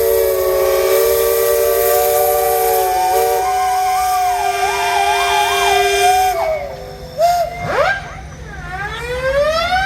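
A chorus of steam traction engine whistles blowing together as one loud, sustained chord of many notes, with one whistle warbling up and down. About six and a half seconds in most of them cut off, and the few left sound in long glides up and down in pitch.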